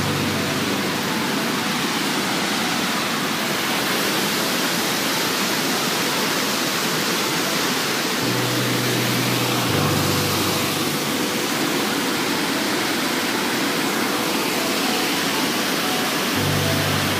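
Steady rush of a waterfall, water pouring over stepped rock ledges. A few low sustained tones come in briefly near the start, about halfway through and near the end.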